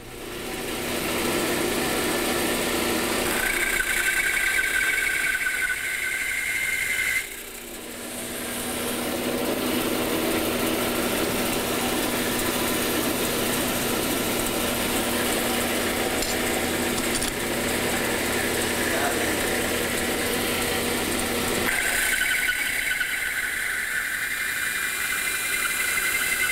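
Bandsaw running and cutting a series of short straight rip cuts into a hardwood board, with a high-pitched squeal twice: for a few seconds early on and again near the end.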